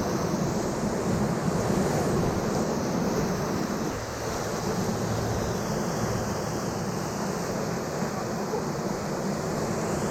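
Whitewater of a river rapid rushing steadily around a raft, with wind buffeting the microphone; the sound eases slightly about four seconds in.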